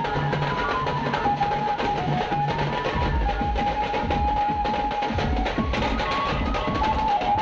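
A pad band's drum section beating large double-headed drums with sticks in a fast, dense rhythm. Over the drums runs a melody of held, stepping notes, and a deep bass beat comes in about three seconds in.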